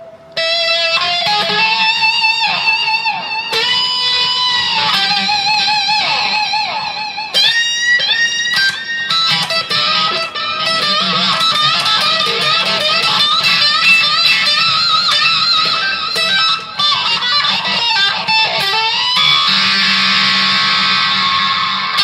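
Loud acid rock solo on a Les Paul-style electric guitar through a Marshall combo amp: sustained notes bent up and down with wide vibrato, quick runs of notes, and a thick held sound near the end.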